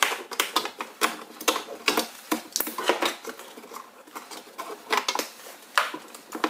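A pickup door's wiring harness and its plastic connectors and grommet being pushed and guided into the door, giving irregular sharp clicks, taps and rattles.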